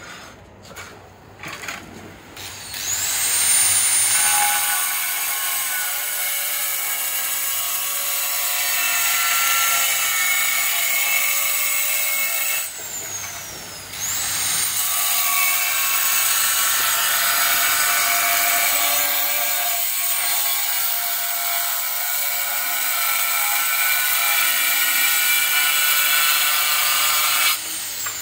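Handheld angle grinder cutting a curved line through a red floor tile: a few light knocks, then the motor whines up to speed about three seconds in and grinds through the tile. It stops briefly about halfway, spins up again and cuts until shortly before the end.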